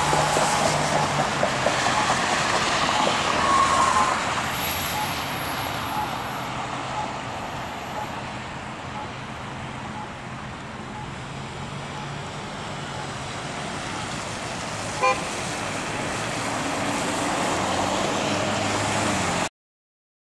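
Road traffic: cars driving past and idling, a steady hum of engines and tyres, with a faint tick about once a second through the middle. The sound cuts off suddenly near the end.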